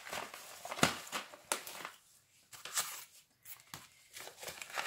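Paper seed packet being handled, rustling and crinkling, with a few sharp clicks in the first two seconds before it goes quieter.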